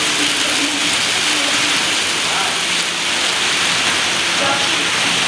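HO-scale model train coaches rolling along the track: a steady rushing noise of small metal wheels on rails, with faint voices behind.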